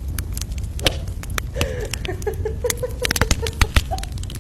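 A quick run of short chirping calls from an animal, a dozen or so even notes, through the middle, among scattered clicks and taps over a steady low rumble.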